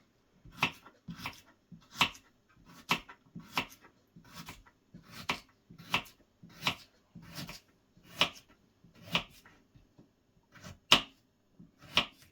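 Kitchen knife slicing through a raw carrot onto a chopping board: a steady run of crisp chops, about one every two-thirds of a second, a few of them louder than the rest.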